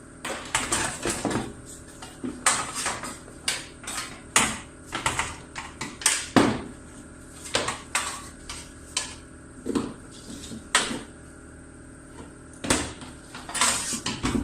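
An electric plug being handled and closed up: irregular clicks, taps and clatters of small hard parts.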